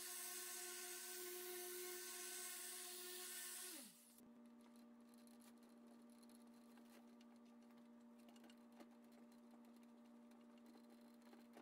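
Electric orbital polisher with a foam pad buffing a painted panel, running with a steady whine, then switched off about four seconds in, its pitch falling as it winds down. A faint steady hum remains afterwards.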